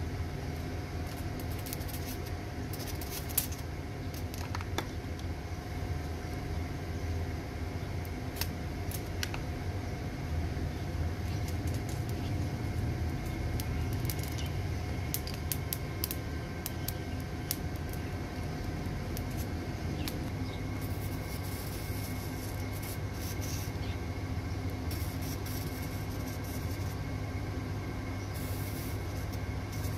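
Light metallic clicks and clinks of pliers on a car battery's lead terminal post, over a steady low rumble.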